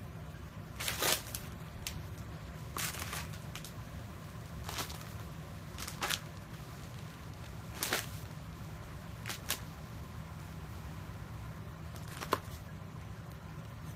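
Candy wrappers and cardboard chocolate boxes crinkling as a cat paws at them: short rustles a second or two apart, over a steady low hum.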